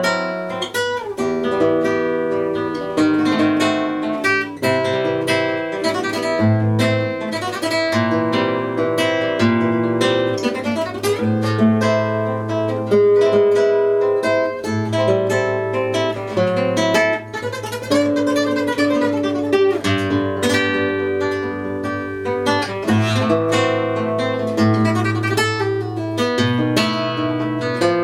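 Acoustic guitar music: a plucked melody over a steady low bass line.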